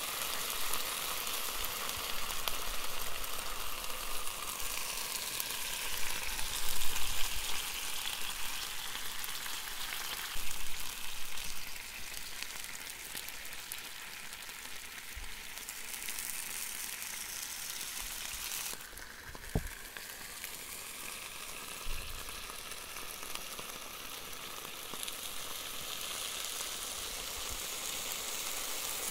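Melted ice cream and wafer cone sizzling and bubbling on the hot plates of an electric waffle maker, a steady frying hiss, with two brief knocks about two-thirds of the way through.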